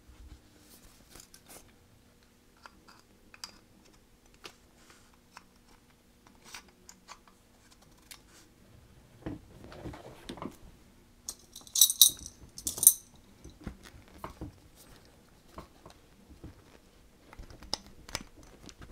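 Small metal clicks and scrapes as an Ed Brown Maxi-well drop-in magwell housing is worked into the grooves of a 1911 pistol frame, with two brighter metallic clicks a second apart near the middle.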